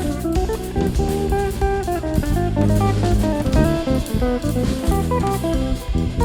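Live instrumental band playing: a guitar runs a quick melodic line over drum kit and bass.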